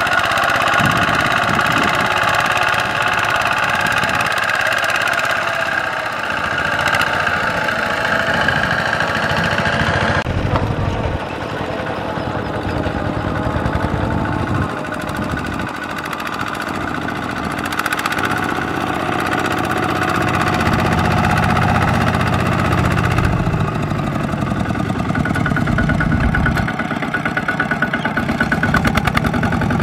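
Single-cylinder Kubota diesel engines of two-wheel walking tractors chugging steadily as they haul trailers loaded with rice sacks. The sound shifts abruptly about ten seconds in and again about twenty-three seconds in, as a different machine takes over.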